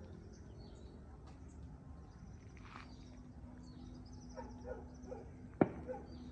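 Faint outdoor birds chirping, with a few short lower calls and a steady low hum starting partway through. A single sharp click comes near the end.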